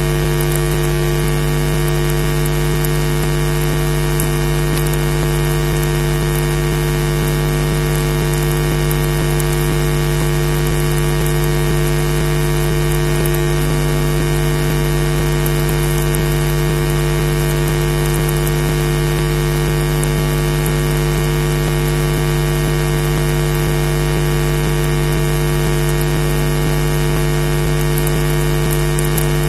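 Steady electrical hum and hiss on a nest webcam's audio feed: several constant tones over a haze of static at an unchanging level.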